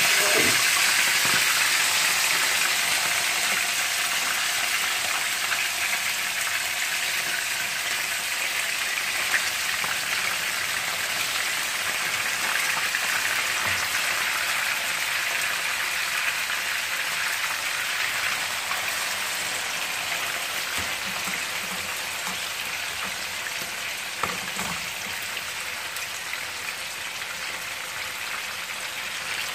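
Chicken drumsticks frying in hot oil in a nonstick pan: a steady, dense crackling sizzle that slowly gets quieter. A few light knocks come from tongs turning the pieces, one about halfway through and a sharper one near the end.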